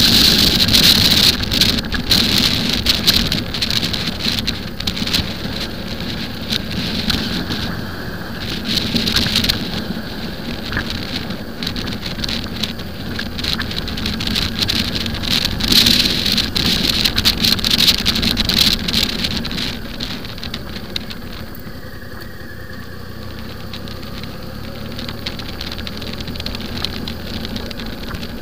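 Wind rushing and buffeting over the microphone of a camera on a moving motorcycle, with the bike's engine running steadily underneath. The gusts ease somewhat after about twenty seconds.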